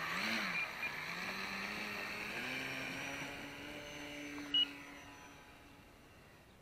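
RC model Air Tractor's motor and propeller, throttled up and down twice, then run up to a higher steady pitch about two and a half seconds in for the takeoff run, fading as the plane flies off. A short high beep sounds about four and a half seconds in.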